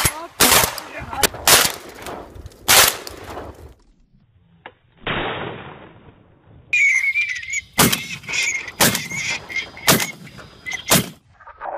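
Shotgun blasts from duck hunters: about four shots in the first three seconds, then after a pause a short rushing hiss, and from about seven seconds a high wavering whistle over another quick string of about five shots.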